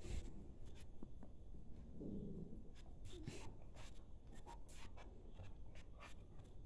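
Faint, irregular ticks and scratches of dogs' claws on a tiled floor as the dogs move about.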